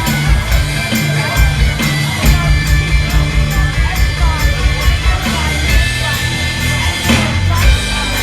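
Live rock band playing loud, with a steady drum beat over sustained bass and guitar.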